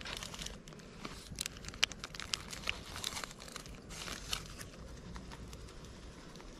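Spice packets crinkling as powdered masala is shaken out over a steel bowl of raw chicken, heard as a run of small scattered crackles and crinkles.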